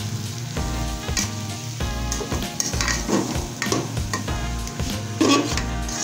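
Grated carrots for carrot halwa sizzling in ghee in an aluminium pot as a metal spoon stirs them, with irregular scrapes and clinks of the spoon against the pot, the loudest about five seconds in.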